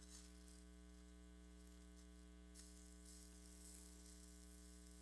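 Near silence with a steady electrical hum on the recording.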